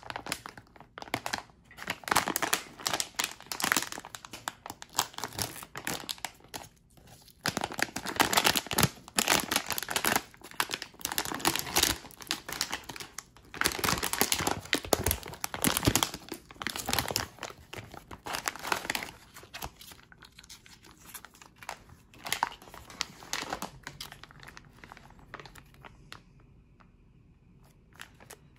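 Plastic and foil packaging of an instant rice noodle pack crinkling and rustling in repeated bursts as it is handled, pulled open and its sachets taken out, with some tearing. The crinkling thins to a few faint rustles over the last few seconds.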